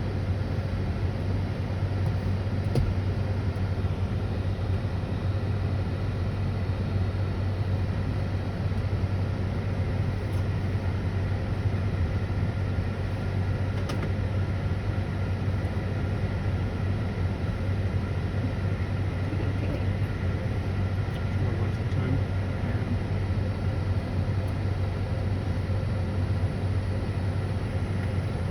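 Steady low hum over even background noise.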